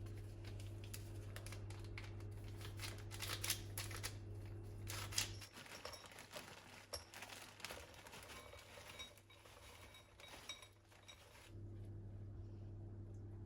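Kitchen handling sounds: a run of small clicks, taps and rustles, busiest a few seconds in, over a steady low hum that drops out for about six seconds in the middle.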